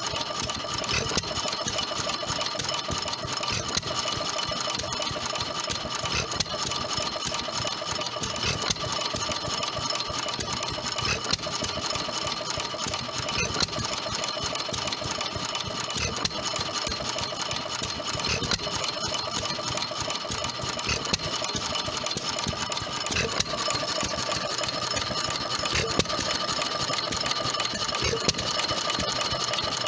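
Fairbanks-Morse Z headless hit-and-miss stationary engine running, its valve gear and igniter making a steady fast clatter with a louder beat every two to three seconds.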